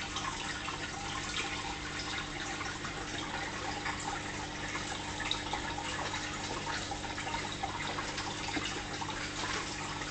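Fish tank water trickling and splashing steadily, with many small drip-like pops, over a steady low hum.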